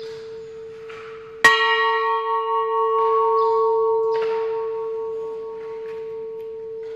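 A bell struck once about a second and a half in, its overtones ringing and slowly fading over a steady held tone.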